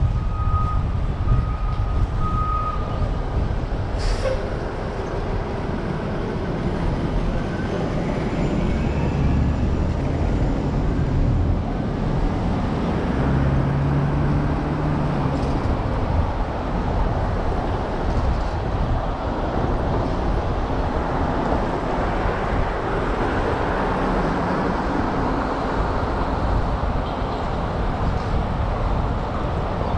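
City street traffic: the steady noise of car, truck and bus engines and tyres on the avenue. Near the start there is a short high tone in three pulses, and about four seconds in there is a sharp click.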